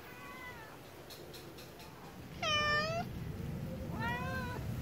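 Domestic cat meowing: three short meows, the middle one the loudest.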